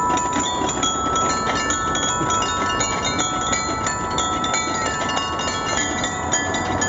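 Many high, chime-like tones ringing and overlapping, new notes starting and stopping in quick succession, from a sound-playing metal plate set in the pavement that a man is stepping on.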